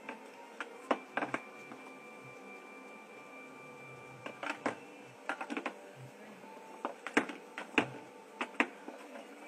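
A mouse handling a cookie on a wooden board: scattered sharp clicks and taps of the cookie knocking and scraping, in small clusters, over a faint steady hum. A faint high steady tone sounds from about one to four seconds in.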